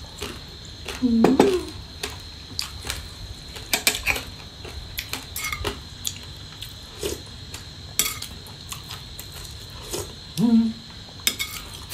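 Metal spoon clinking and scraping against ceramic bowls and plates while eating, in scattered separate clicks.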